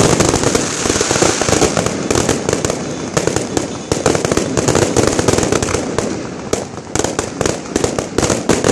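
Fireworks display going off in quick succession: a dense, continuous run of bangs and crackles from bursting aerial shells, easing briefly about two-thirds of the way through.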